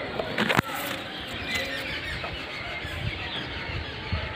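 Faint bird chirps over steady outdoor background noise, with one short, loud sharp sound about half a second in.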